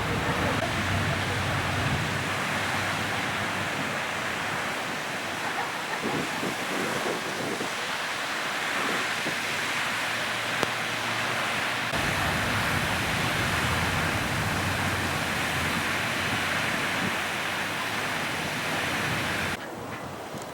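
Steady rushing wind noise on the microphone. It changes abruptly about twelve seconds in and drops quieter about a second before the end.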